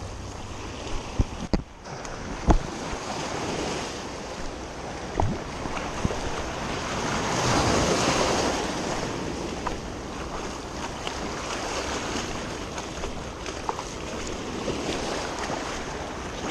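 Small waves washing in over the stones of a rocky shoreline, swelling to a louder wash about 7 to 9 seconds in, with wind buffeting the microphone. A few sharp knocks sound in the first few seconds.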